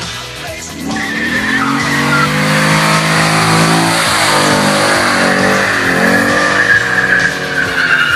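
Chevrolet Corvette's V8 held at high revs in a burnout, its rear tyres spinning and squealing steadily on the pavement. The engine climbs and the squeal starts about a second in, and both ease off near the end.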